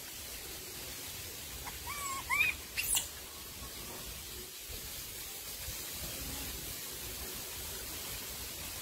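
A few short, high animal calls with quick bends in pitch, about two to three seconds in, ending in a sharp squeak, over a steady hiss.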